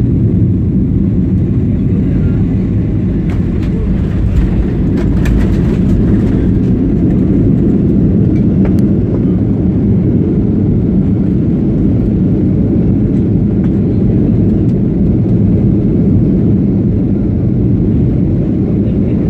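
Boeing 737 cabin noise during landing: a steady, loud, low rumble of the engines and airflow, with a few light rattles a few seconds in.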